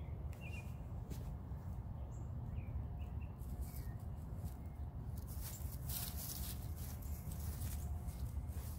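Outdoor garden ambience: a steady low rumble with a few short bird chirps in the first few seconds and some faint rustling.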